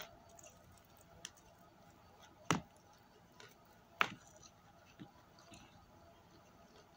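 Quiet eating sounds as fried chicken is pulled apart by hand and chewed: a few short sharp clicks, the two loudest about two and a half and four seconds in.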